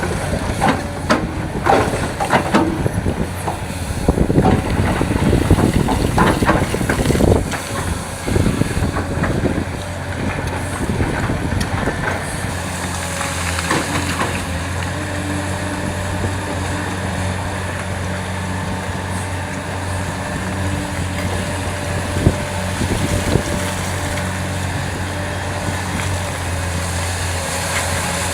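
Heavy diesel earthmoving machinery, an excavator loading dump trucks. Irregular knocks and clatter fill the first eight seconds or so, then settle into a steady engine drone with a couple of single knocks later on.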